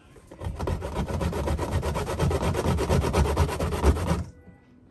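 Peeled sweet cassava root rubbed quickly up and down a flat stainless-steel hand grater resting in a steel bowl: a run of fast, even rasping strokes that stops about four seconds in.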